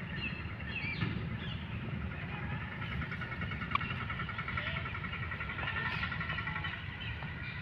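Outdoor ambience: a steady low rumble under continuous fine, rapid high-pitched chirping.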